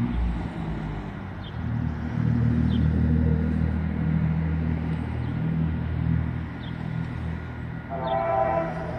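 Diesel freight locomotives rumbling steadily as the train approaches. About eight seconds in, the locomotive's air horn begins to sound, a chord of several tones.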